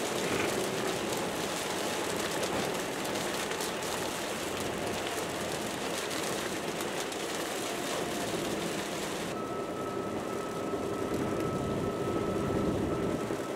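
Steady noise inside a moving car's cabin in heavy rain: rain hitting the windshield and tyres on the wet road. About nine seconds in, the sound changes abruptly to a duller, quieter cabin drone with a faint steady whine.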